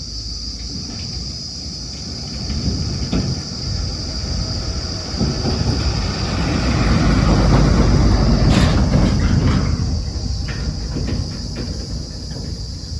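JCB backhoe loader's diesel engine working under load, rising to its loudest about halfway through, with sharp metallic knocks and clanks scattered through it, most of them in the second half.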